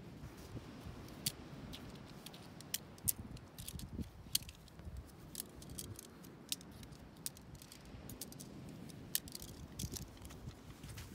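Tent pole sections clicking and rattling against each other as a shock-corded pole is pulled from the tent and folded up, a string of irregular sharp clicks over a low wind rumble.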